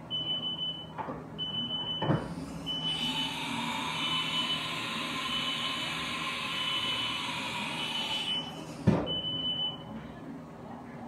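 A repeating high electronic beep, about 0.6 s on and 0.6 s off. About two seconds in, after a click, the Haas TM-2 CNC toolroom mill starts a whirring hiss with a tone that rises and then falls away, cut off by a sharp click near the end, after which the beeping is heard plainly again.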